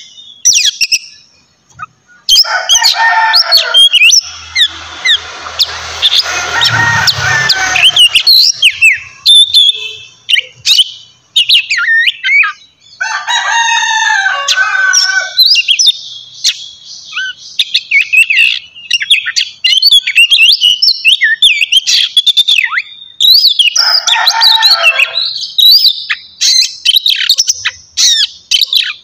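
Oriental magpie-robin (kacer) singing loud and prolifically: a fast, varied run of sharp whistles and sliding notes, broken three times by harsher, rasping phrases.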